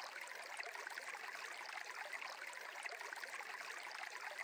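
Faint, steady sound of a flowing stream, a soft trickling water ambience laid under the meditation narration.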